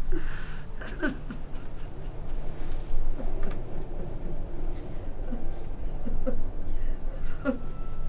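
Indistinct murmur of several voices in a room, with short broken voice sounds scattered through it over a low steady hum.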